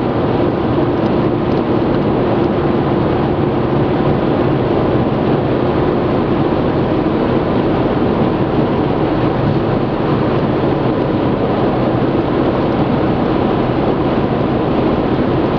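Steady road noise of a car at motorway speed, heard from inside the cabin: tyre and wind noise with a faint engine hum underneath.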